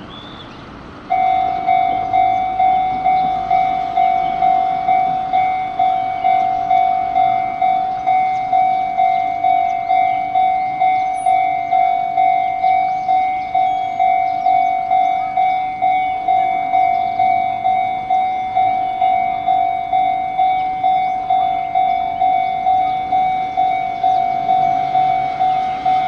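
Japanese railroad crossing warning bell starting up about a second in, then ringing steadily in even electronic dings about twice a second as the crossing closes for an approaching train.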